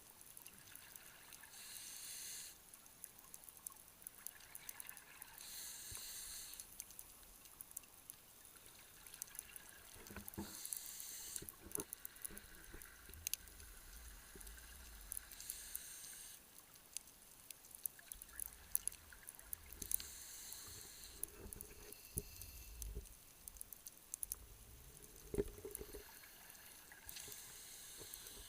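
Underwater recording of a scuba diver breathing through a regulator: bubble bursts from each exhalation come about every four to five seconds, with scattered sharp clicks and low rumbles in between.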